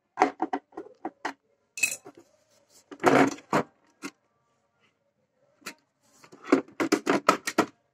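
Plastic housing of a Rico juicer mixer grinder being unscrewed and pried apart with a screwdriver: a string of short clicks and knocks of plastic and metal, with a louder clatter about three seconds in and a quick run of clicks near the end.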